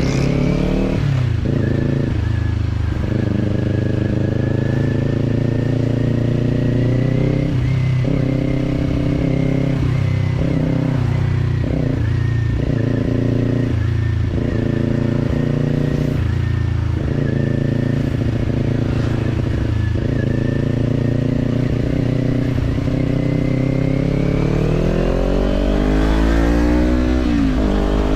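Kawasaki parallel-twin motorcycle engine with a slip-on exhaust, running under way at fairly steady revs, with short dips in the note every second or two. Near the end the revs climb sharply, then drop back.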